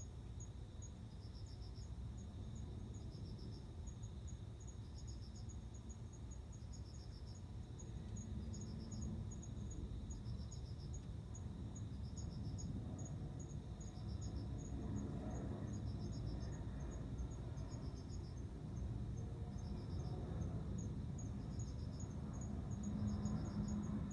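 Male crickets chirping: one sings short trains of pulses about every second and a half, while another keeps up a faster, higher run of chirps, over a low background rumble.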